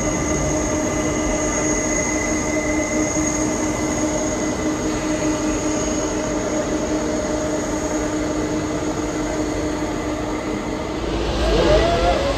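Boeing 747 jet engines at taxi power, a steady whine with several held tones over a broad rush. Near the end the sound swells with a deeper rumble.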